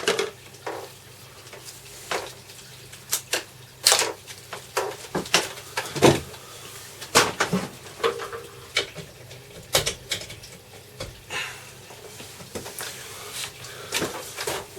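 Irregular knocks, clicks and rustles of an electric stapler and its power cord being handled while the cord is untangled.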